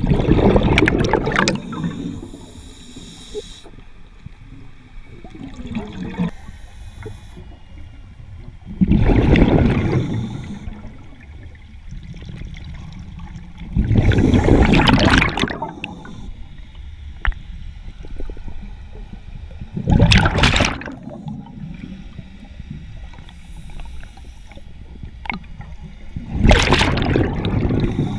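Scuba diver's regulator venting exhaled air underwater as rushing bursts of bubbles. There are five exhalations, about one every six seconds, each lasting a second or two.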